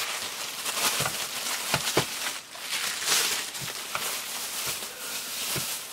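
Crumpled paper and plastic wrapping crinkling and rustling as a small item is unwrapped by hand, with a few light knocks as it is handled on the table.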